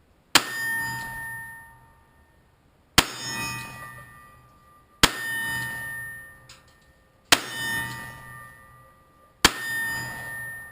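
Taurus six-shot .357 revolver fired five times in slow, aimed fire, about two seconds between shots, each report followed by a ringing tail of about a second.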